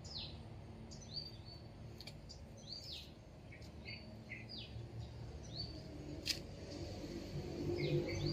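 Small birds chirping: short downward-sliding chirps about once a second, over a low background rumble, with a sharp click about six seconds in.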